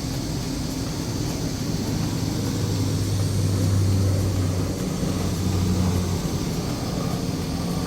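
Steady mechanical noise with a low hum. The hum grows louder about two and a half seconds in and drops away about six seconds in.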